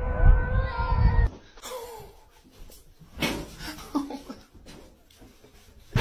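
Two cats yowling at each other in a standoff: a long, wavering, drawn-out yowl over a low rumble, cut off abruptly a little over a second in. After that there are only faint, scattered short sounds.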